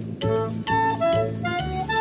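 Background music: a melody of changing notes over a steady beat.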